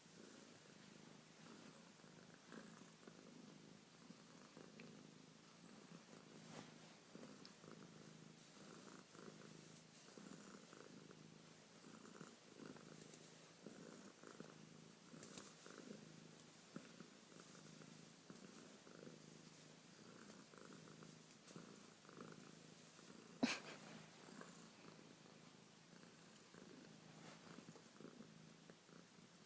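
Domestic cat purring faintly and steadily. A single sharp click comes about three-quarters of the way through.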